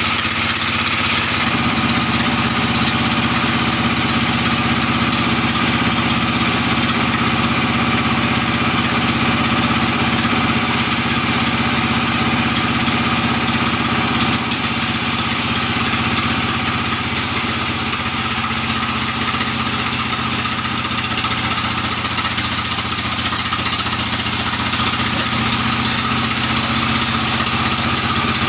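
Sawmill band saw running steadily with an engine-like hum while an albasia log is fed through it and a board is sawn off.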